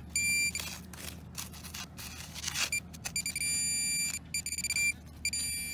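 Handheld Minelab pinpointer probe sounding a steady high-pitched tone that stops and starts as its tip is moved through the dug soil, signalling a metal target close by. Scrapes and knocks of the probe against the clods come between the tones.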